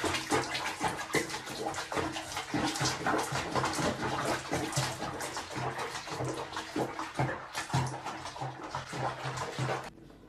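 Water splashing and sloshing in a small basin around a cat being bathed in it, a dense run of irregular splashes that stops suddenly near the end.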